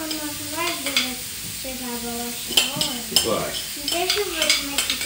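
A child's voice making drawn-out, wavering sounds over the steady sizzle of persimmon slices on a hot grill, with a few light clicks.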